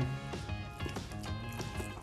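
Background music with steady held tones.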